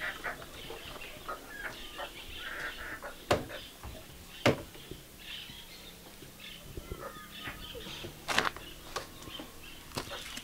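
Chickens clucking now and then, with a few sharp knocks as produce is handled and set into an open refrigerator, the loudest near the end.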